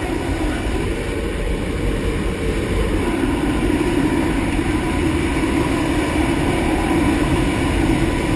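Steady drone of a jump plane's engines and rushing air heard inside the cabin, growing a little louder about three seconds in.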